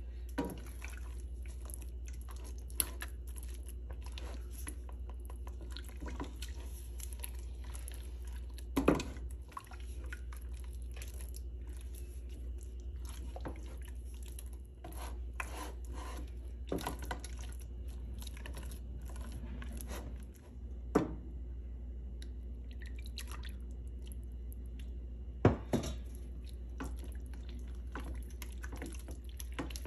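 Silicone spatula stirring and pressing a thick, gummy cornstarch-and-sugar-syrup mixture in a stainless steel pan: wet squelching with irregular knocks of the spatula against the pan, three of them louder. A steady low hum runs underneath.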